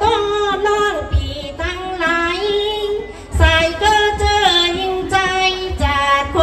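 A woman singing Tai Khun sen, chanted verse read from a sheet, into a microphone. Her long melodic phrases glide up and down in pitch, with a short breath break about three seconds in.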